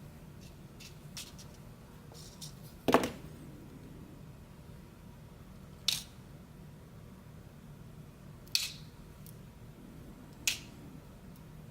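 Sharp clicks and taps of small metal lock parts and tools being handled while a pin-tumbler lock cylinder is taken apart: a few faint ticks at first, then four distinct clicks a few seconds apart, the first the loudest.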